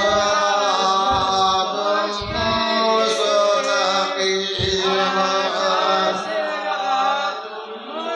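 Devotional chanting: a voice holds long melodic lines that bend up and down over a steady low hum. A few short low thumps sound about once a second in the first half.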